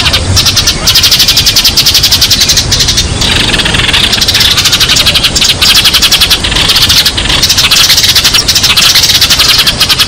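A flock of sparrows chirping loudly and without pause, rapid overlapping chirps many times a second. It is a sparrow flock call used as a lure to draw other sparrows in.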